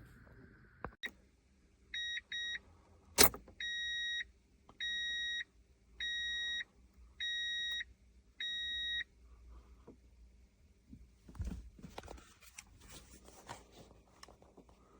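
Electronic beeper sounding: two short beeps, a sharp click, then five longer, evenly spaced beeps a little over a second apart. Rustling and clattering handling noise follows.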